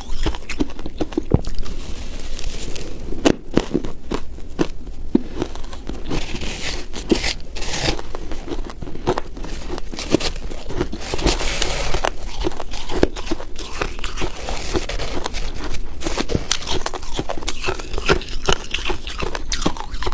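Close-miked crunching and chewing of crumbly, frosty ice, with a metal spoon scraping and scooping through the powdery frozen mass in a glass dish several times.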